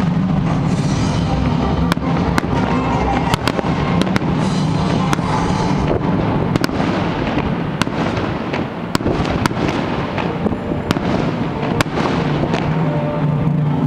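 Fireworks bursting in quick succession: many sharp bangs and crackling, over loud music playing throughout.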